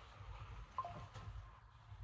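Quiet room with faint rustling of suit and shirt fabric as hands fasten a sleeve cuff, and a brief faint tone that drops in pitch about a second in.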